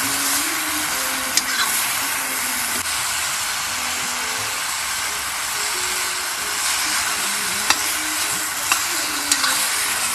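Vegetables sizzling steadily in a kadhai over an open wood fire, stirred with a metal ladle, with a few sharp clicks.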